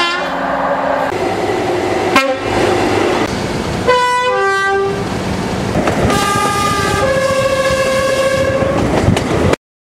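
British train's two-tone horn sounded twice, each time a high note followed by a lower one, the second time longer, over the steady rumble of a passing train. The sound cuts off suddenly near the end.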